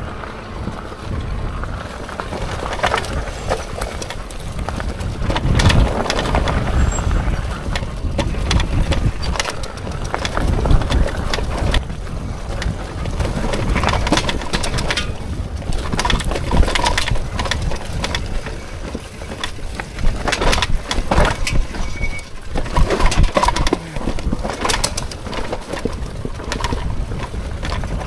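Hitway BK10S folding fat-tyre e-bike going down a rough, rocky trail: many quick knocks and rattles from the bike jolting over stones, over a steady low rumble of tyres and wind.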